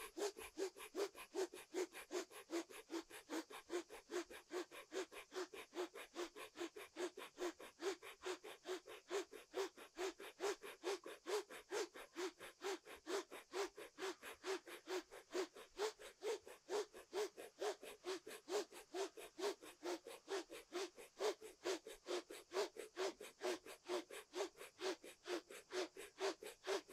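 Kundalini breath of fire: rapid, rhythmic, forceful exhalations through the nose, pumped from the belly at about three a second and held at an even pace.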